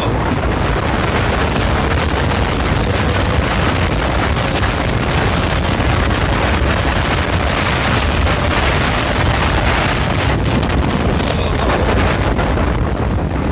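Steady wind rumble on the microphone and tyre noise on concrete from a Kunray 3000 W 72 V brushless electric go-kart running at speed, with a faint steady motor whine beneath.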